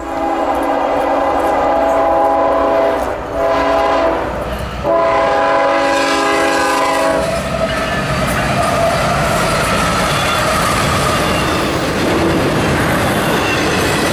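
A CSX freight locomotive's multi-chime air horn sounds three blasts, long, shorter, long, for the grade crossing. After about seven seconds it stops, and the steady rumble and clickety-clack of the locomotive and the double-stack container cars rolling past take over.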